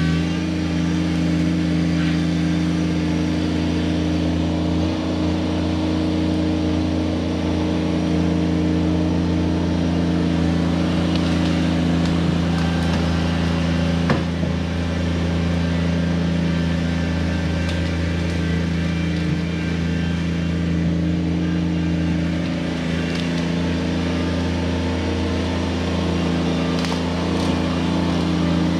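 Kubota BX23S subcompact tractor's three-cylinder diesel engine running steadily at one speed as the tractor drives and manoeuvres, with a single sharp click about 14 seconds in.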